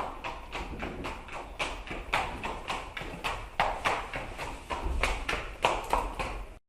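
Horse hoofbeats clip-clopping in a quick, even rhythm, about three to four strikes a second, cutting off suddenly near the end.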